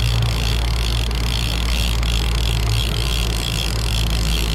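Fishing boat's engine running steadily, a low even drone with a faint high whine above it.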